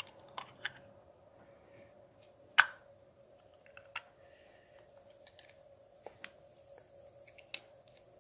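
Scattered small clicks and taps at close range, a dozen or so at uneven intervals, one much louder sharp click about two and a half seconds in, over a faint steady hum.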